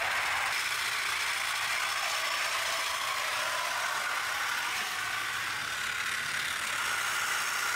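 3D-printed PLA straight-cut spur gearboxes of a brushless-motor tracked tank running steadily as it drives, a noisy whirring grind with a faint whine; the gears are flat rather than helical, which is why they are not quiet at all.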